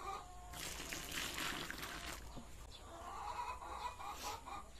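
A rush of liquid poured from a dipper onto a heap of rice bran for about a second and a half, then chickens clucking in a series of short calls in the second half.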